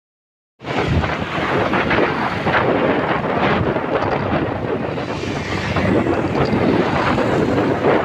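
Wind buffeting the phone's microphone on a moving motorbike, a dense rumbling rush with road noise under it, beginning suddenly about half a second in.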